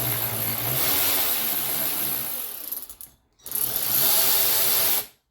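A power tool running in two bursts, about three seconds and then just under two, driving out the bolts that hold an SR Suntour suspension fork's lower legs together.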